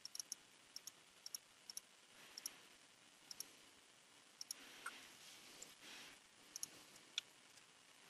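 Faint, sharp clicks of a computer mouse button, mostly in quick press-and-release pairs, about a dozen scattered irregularly over near-silent room tone.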